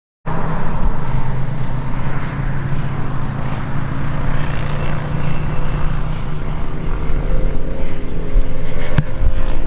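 A vehicle engine running steadily, a low drone with a rumble, and one sharp click about nine seconds in.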